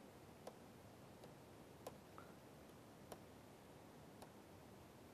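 Near silence with about six faint, irregularly spaced clicks of a stylus tapping on a tablet screen during handwriting.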